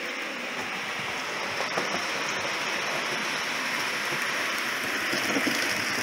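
Model train running along the layout's track: a steady whirring rumble of wheels and motor that grows slightly louder as the train nears.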